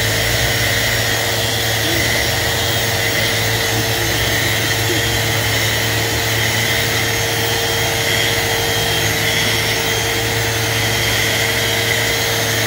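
Festool Rotex RO 150 eccentric sander running steadily in its forced-rotation (Rotex) mode. Its felt polishing pad, loaded with polishing paste, is held against a clear plastic block, giving an even, loud motor hum with a steady whine.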